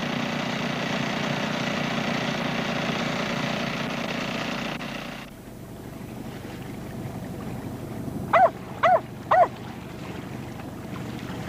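A steady rushing of sea water and wind for about five seconds, then a boat's engine running with a low hum under a softer wash of water. About eight seconds in come three short pitched calls, each rising and falling, about half a second apart.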